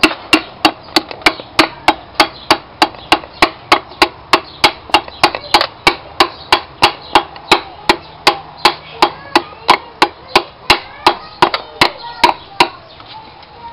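Steady light tapping of a wooden hammer handle on a piston crown, driving the piston and its new rings through a ring compressor into a cylinder of a VW Pointer 1.8 engine block. The sharp knocks come about three a second and stop near the end.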